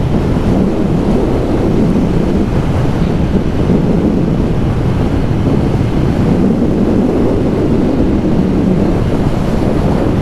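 Steady wind rush buffeting the microphone of a motorcycle rider at road speed, a loud even roar with no distinct engine note standing out.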